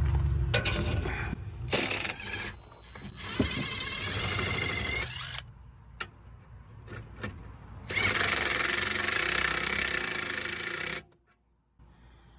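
Cordless impact driver cranking the RV's stabilizer jacks down in three runs of one to three seconds, hammering ('ugga-duggas') as each jack snugs tight; the last run cuts off suddenly near the end.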